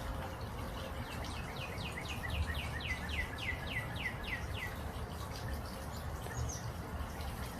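A bird calling a run of about seventeen short, high notes, each sliding down in pitch, at roughly four a second, for about four seconds.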